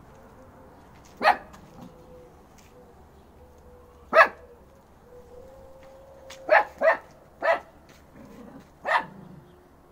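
Fox Terrier puppy barking: six short, sharp barks spaced irregularly, with a quick run of three about two-thirds of the way through.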